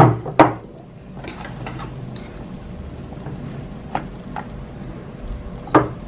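Ceramic mugs being set down and handled on a countertop: two sharp clunks at the start, a couple of lighter clinks of a metal spoon against a mug about four seconds in, and another knock near the end.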